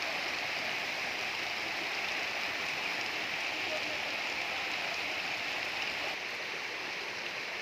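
Floodwater rushing steadily over a paved lane, a continuous hiss of running water, a little quieter from about six seconds in.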